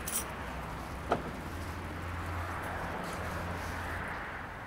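Low, steady vehicle hum after a train has gone by, with a single sharp click about a second in.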